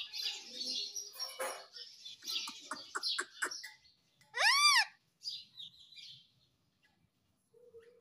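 Indian ringneck parakeet chattering in short scratchy bursts. About four and a half seconds in it gives one loud whistled call that rises and falls, then softer chatter trails off into a brief lull near the end.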